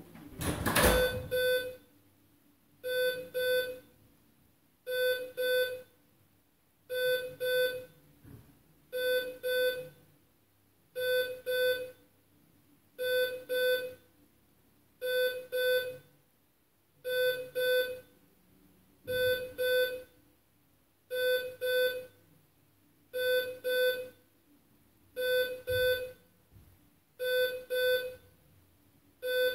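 A loud thud about a second in, then an electronic ringing: a pair of short beeps repeating about every two seconds.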